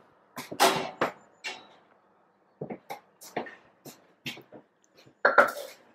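Irregular clicks and light knocks of kitchenware being handled, about a dozen spread over several seconds with quiet gaps between them.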